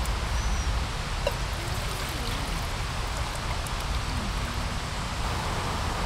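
Fast-flowing river rushing steadily over rocks, an even watery hiss with a low rumble beneath.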